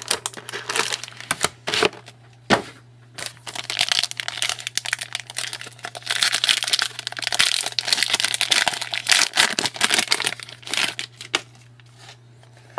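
Plastic wrapper of a trading card pack crinkling and tearing as it is opened by hand, with crackles and clicks as the cards are handled, over a faint steady low hum.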